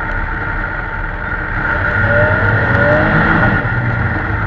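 An engine running steadily, swelling slightly in the middle.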